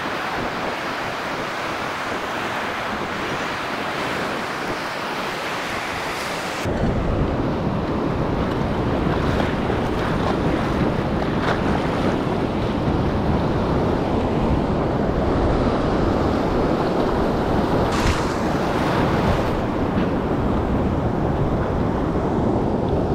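Ocean surf washing and breaking, with wind buffeting the microphone. About seven seconds in the sound turns abruptly to a heavier low rumble of wind and surf.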